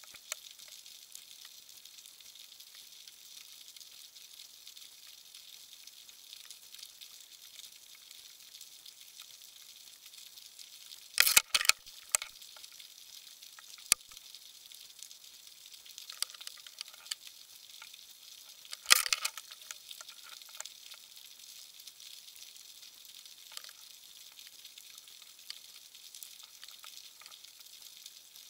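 Underwater ambience picked up by a submerged camera: a steady, faint, crackling hiss with scattered sharp clicks, a quick cluster about eleven seconds in and the loudest single click about nineteen seconds in.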